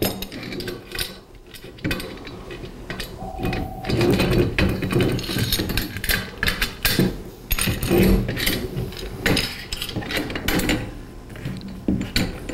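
Metal roof-rack bracket and hardware being handled and flipped around: irregular clanks, clicks and scrapes of metal on metal.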